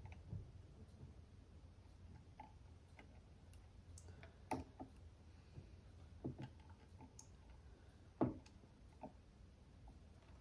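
Scattered small clicks and taps, about half a dozen spread irregularly, the sharpest about eight seconds in, over a faint low hum: capacitors and tools being handled at a workbench while new parts are fitted to a circuit board.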